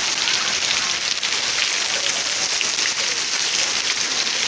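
Heavy rain pouring steadily onto a flooded street, a dense hiss of drops splashing into standing water.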